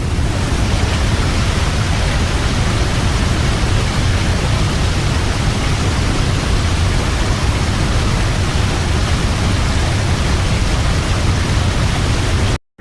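Large waterfall: a steady, dense rush of falling water with a heavy low rumble, starting abruptly and cutting off suddenly near the end.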